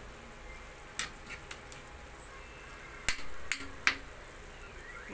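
Metal spoon clinking and scraping against a wok while stirring taro stems in a simmering sauce: a sharp clink about a second in, a few lighter taps after it, and a louder cluster of clinks around three to four seconds in.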